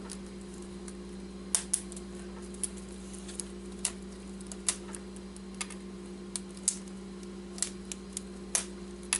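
Plastic keycaps being pulled off an HP wireless keyboard one after another: irregular sharp clicks, roughly two a second, over a steady low hum.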